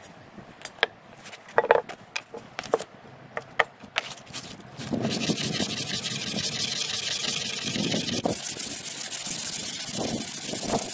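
A few light clicks and taps, then from about five seconds in a small antler ring rubbed steadily back and forth on a sheet of sandpaper laid flat, a continuous gritty scraping.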